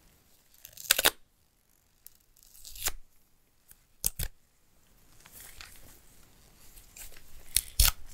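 Nitrile-gloved hands handling a coiled USB-C cable and its wrap: a few short, sharp tearing rasps, a double one about four seconds in, the loudest about a second in and near the end, with soft rustling between them.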